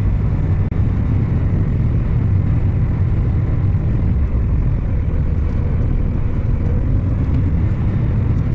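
Farm tractor's diesel engine running steadily at road speed: an even, low drone.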